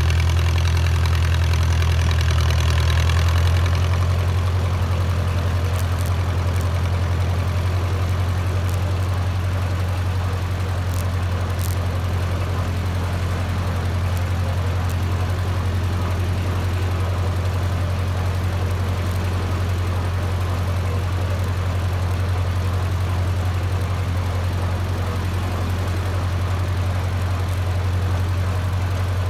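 Small antique tractor's engine running steadily at low speed as it drives along, heard close up from the front of the tractor. It is a little louder for the first few seconds, then settles to an even, steady drone.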